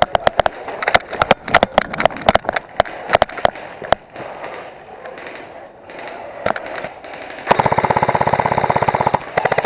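Airsoft guns firing: irregular sharp single shots for the first few seconds, then a rapid full-auto burst lasting about a second and a half near the end.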